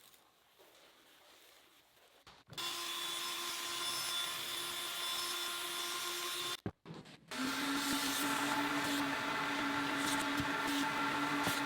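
A small electric motor running steadily, heard in two stretches. It starts about two and a half seconds in, stops briefly near the middle, and starts again with a slightly lower hum.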